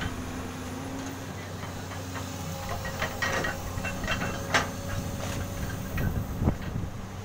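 Komatsu PC200 hydraulic excavator running steadily as it lowers its arm and bucket into a pit, with a few sharp knocks and clanks in the second half.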